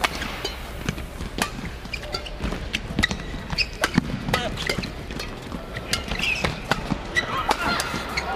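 Badminton doubles rally: sharp hits of rackets on the shuttlecock in quick, irregular succession, about two a second, over the hum of an arena.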